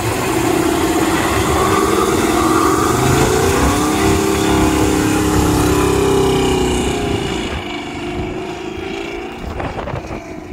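A car engine running, its pitch rising and falling with the revs; it is loudest for the first seven seconds or so, then eases off.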